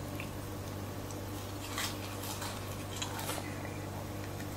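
A person chewing a mouthful of curly fries, with a few faint crunches, over a steady low hum.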